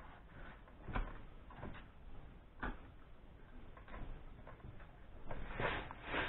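Light metallic clicks and knocks from a Zenith VN carburettor being turned over and handled: a few single clicks spaced a second or more apart, then a denser clatter near the end.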